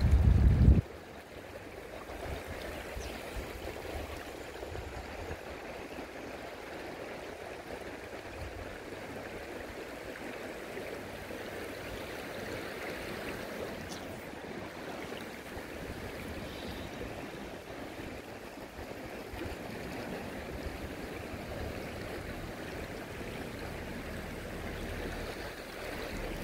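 Clear mountain river flowing over boulders and a shallow stony bed: a steady rush of water. A loud low rumble is heard in the first second.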